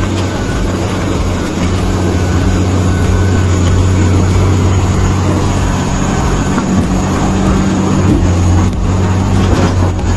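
Large bulldozer's diesel engine running under load with a steady low drone.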